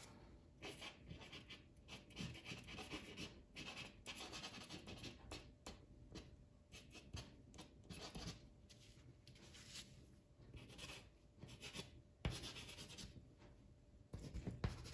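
Pastel sticks scratching and rubbing on black Canson paper in faint, irregular short strokes, several a second, as lines and texture are laid in.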